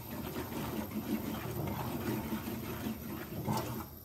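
Wooden spoon stirring and scraping butter-toasted cornmeal around a copper pan: a continuous scraping and swishing.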